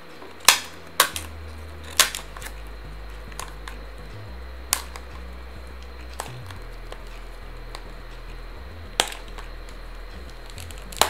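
Scattered sharp clicks and taps, about six in all, as a small cardboard retail box is gripped, squeezed and pried at by hand to get it open.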